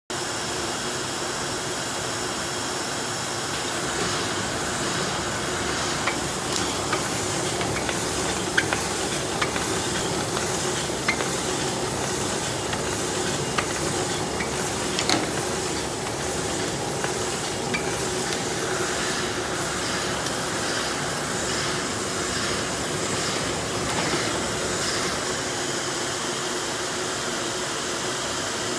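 Empty PET bottle OPP labeling machine running: a steady mechanical hum and hiss from the conveyor, feed screw and star wheels. Scattered sharp clicks and knocks of bottles come mostly in the middle.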